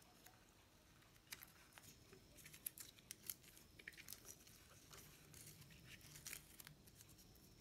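Faint, scattered clicks and rustles of hands handling the capacitor's wires and connectors inside a water pump motor's terminal box.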